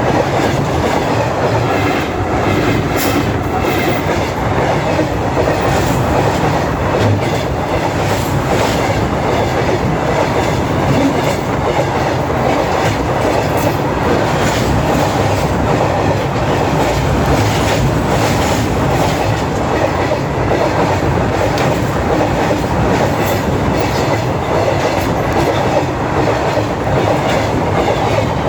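A freight train rolling past close by, a steady loud rumble with the wheels clacking over the rail joints. No horn is heard.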